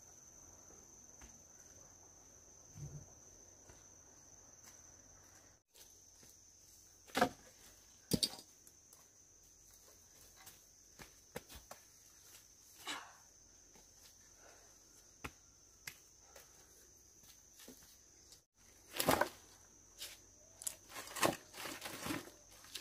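Steady high-pitched drone of crickets, broken off for an instant twice. Scattered knocks and rustles over it, the loudest a sharp knock about seven seconds in and another a second later, then a cluster of knocks near the end.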